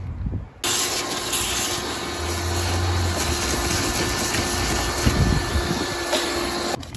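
Shop vacuum running, a rush of air with a steady hum, as its hose nozzle is worked around a van's empty window frame. It starts suddenly about half a second in and cuts off near the end.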